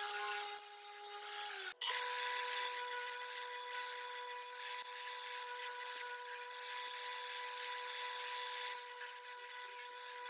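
Power saw running with a steady high whine over a hiss. About two seconds in, the sound breaks off briefly and resumes at a slightly higher steady pitch.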